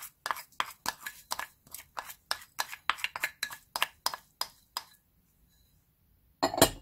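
Millet being knocked and scraped out of a small bowl into a glass mixing bowl: a run of quick light taps, about four a second, that stops about five seconds in. A louder clatter of dishes comes near the end.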